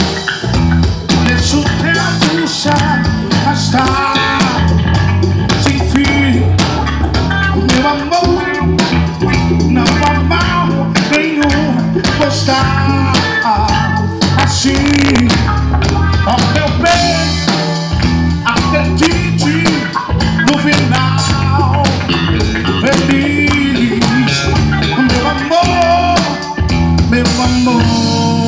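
Live soul band playing: electric bass, drum kit and electric guitar keeping a steady groove, with a singer's voice over them.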